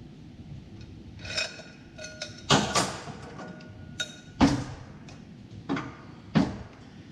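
Metal transmission parts being handled and set down on a bench: about five sharp knocks and clinks, a couple of them ringing briefly.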